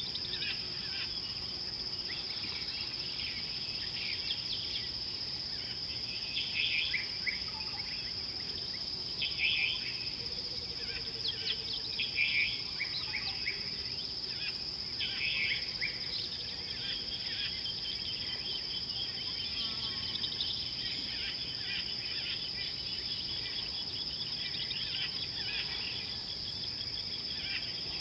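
Steady high-pitched insect drone, with bird chirps and trills coming and going over it.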